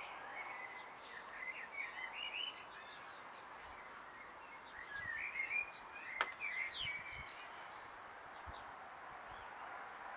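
Small birds chirping in short, quick twittering phrases over a steady background hiss, with one sharp click about six seconds in.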